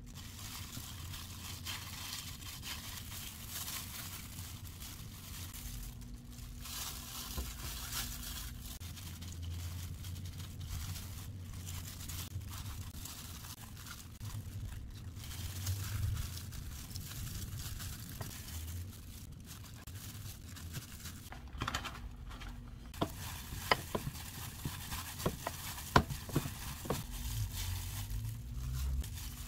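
Disposable plastic food-prep gloves crinkling and rustling as hands press sticky rice into fried tofu pouches and shape rice balls, with a few short light clicks near the end.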